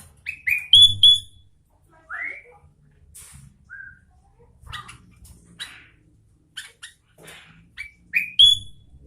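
Sooty-headed bulbul singing: short phrases of clear whistled notes and chirps, some rising in pitch, with the loudest phrases about a second in and near the end.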